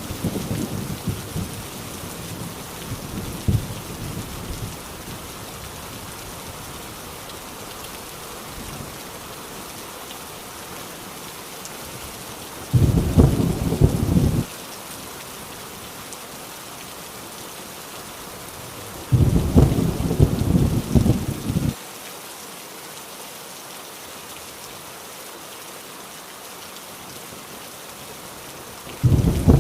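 Heavy rain falling steadily, with thunder rumbling low in the first few seconds. Three loud thunder claps come about 13 seconds in, about 19 seconds in and at the very end, each lasting one to three seconds and stopping abruptly.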